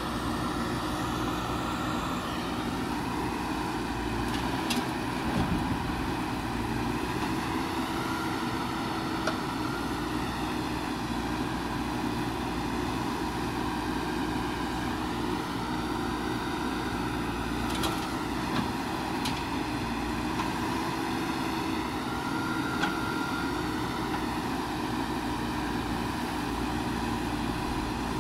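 JCB backhoe loader's diesel engine running steadily as its backhoe arm digs soil, the drone swelling slightly a few times, with a few brief clicks.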